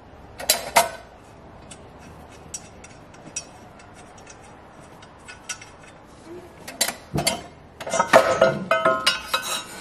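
Hand tools and metal engine parts clinking while the exhaust manifold is unbolted from a Ford Ranger: scattered light clicks, then a busier run of ringing metal clatter in the last few seconds.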